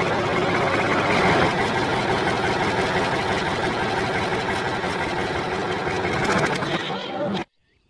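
Steady, loud engine-like running noise of a small motor that cuts off abruptly near the end.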